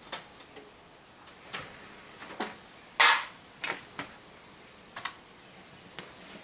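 Keys being pressed on a computer keyboard: a dozen or so irregular clicks, with one louder clack about three seconds in.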